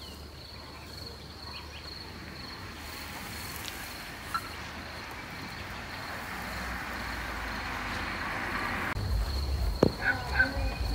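Outdoor field ambience: a steady, high chirping of insects under a rushing noise that swells gradually and cuts off abruptly about nine seconds in, followed by a single sharp click.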